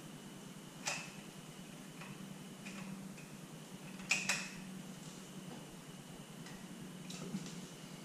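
Small hard parts clicking and clinking as they are handled by hand: a sharp click about a second in and a quick double click about four seconds in, with a few fainter ticks, over a faint steady hum.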